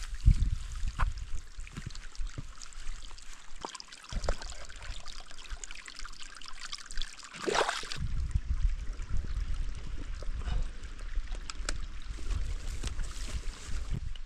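Mountain stream trickling steadily, under low rumbling and scattered knocks from movement close to the microphone. About halfway through, a brief swish rises in pitch.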